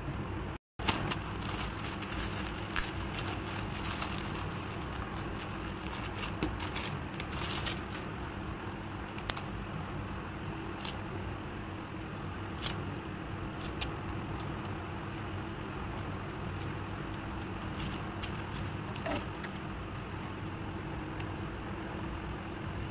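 Scattered light clicks and taps from wooden popsicle sticks and a plastic bottle being handled, over a steady background hum and hiss.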